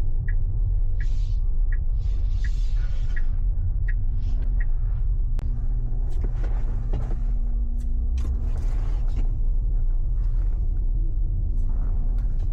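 A steady low rumble with a short high tick repeating about every 0.7 s over the first few seconds, then a few scattered clicks.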